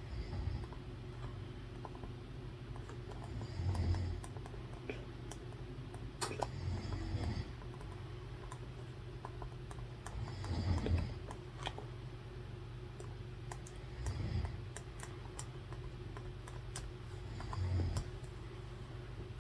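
A sleeping person snoring: a low, rough snore about every three and a half seconds, six in all. Light scattered clicks of typing sound between and over the snores.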